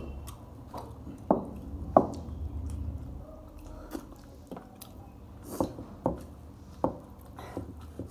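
A person chewing a mouthful of pork chop and rice, with wet mouth smacks and a string of sharp clicks. The two loudest clicks come about one and two seconds in.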